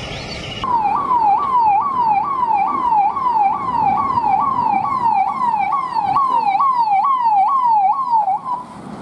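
Police vehicle's electronic siren wailing in fast repeated sweeps, about two a second, as a convoy arrives. It cuts in abruptly about half a second in and stops shortly before the end.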